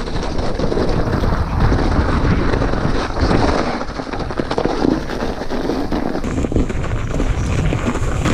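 Mountain bike riding down a snowy trail: wind buffeting the action-camera microphone, with tyre noise and many small knocks and rattles from the bike over bumps.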